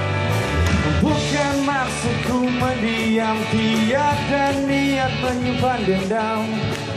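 Live rock band playing in the room, with electric guitars, drums and keys, and a voice singing over them.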